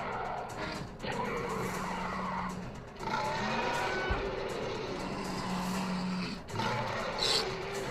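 Dinosaur roars and screeches for a toy fight between a Megaraptor and a horned ceratopsian: four long, harsh cries in a row with short breaks between them.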